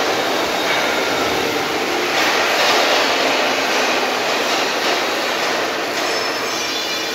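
Steady, loud din of a steel-fabrication workshop: an even rushing noise with no strokes or pauses.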